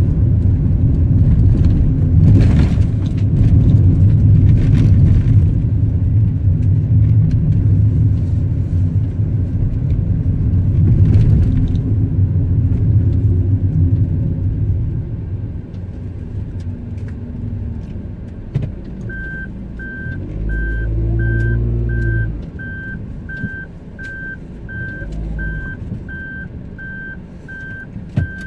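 Car cabin noise of engine and tyres while driving, dying down about halfway through as the car slows and stops. A car's electronic warning chime then beeps steadily, about one and a half beeps a second. Two low thuds sound in the middle of it.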